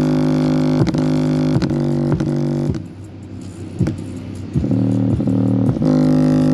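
Small homemade portable Bluetooth speaker playing a bass-heavy music track loudly, at full volume: deep sustained bass notes sliding between pitches over a steady beat, with the bass dropping out briefly about three seconds in.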